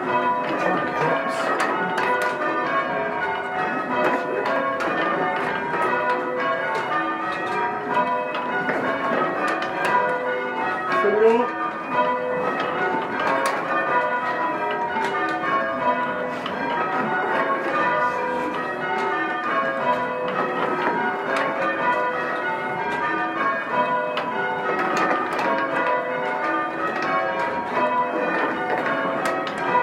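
Change ringing on a ring of six church bells, the bells striking one after another in a steady, unbroken rhythm.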